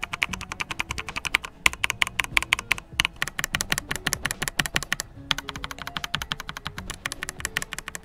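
Fast typing on a Rakk Lam-Ang Lite mechanical keyboard with Outemu switches: a quick run of key clacks with a few short pauses. The switches are not lubed, so this is their stock sound.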